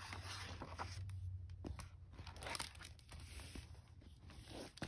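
Hardcover picture book being handled: its pages and cover rustle and crinkle as the book is closed and turned over on a table, with a few short knocks of the cover.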